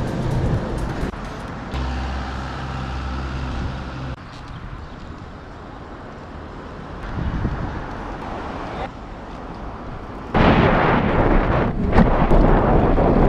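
Wind buffeting an action camera's microphone, a loud rushing roar that starts suddenly about ten seconds in, after a stretch of low background music with steady held notes.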